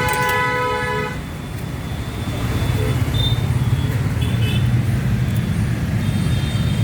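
A vehicle horn toots for about a second at the start, then steady road-traffic rumble carries on, louder after about two seconds in.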